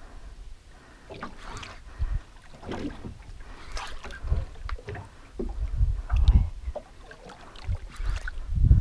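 Water slapping and lapping against the hull and outriggers of a drifting outrigger boat, with wind buffeting the microphone in irregular gusts.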